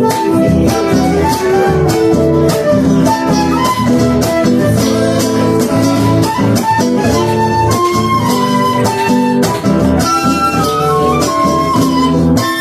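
Live Argentine folk music: acoustic guitars strumming a steady rhythm under a melody of held notes, most likely from a transverse flute.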